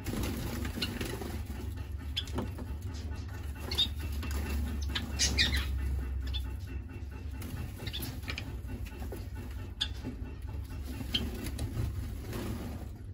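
Small aviary finches giving several short, high cheeps scattered through, with a quick cluster of them about five seconds in, and wings fluttering as birds flit between perches, over a steady low hum.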